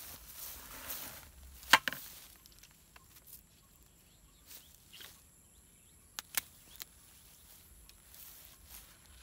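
Hand pruning shears snipping dragon fruit: one sharp, loud snip about two seconds in and a couple of quicker, lighter snips past the middle. Rustling of grass and cactus stems comes before the first cut.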